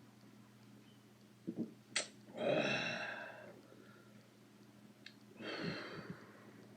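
A man's long breathy sigh after a swallow of beer about two seconds in, just after a sharp click, and a second, weaker sigh about five and a half seconds in.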